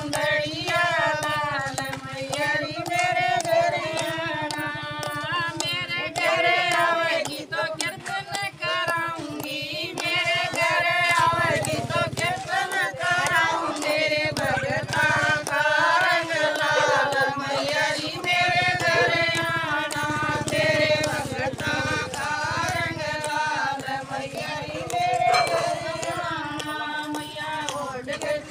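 A group of women singing a Haryanvi devotional bhajan to the goddess Mata Rani together, without instruments, clapping their hands in time.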